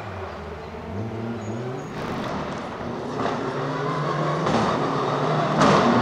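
Mitsubishi Lancer Evolution IX rally car's engine revving up and down through the gears as the car approaches, growing steadily louder, with a few short sharp cracks along the way.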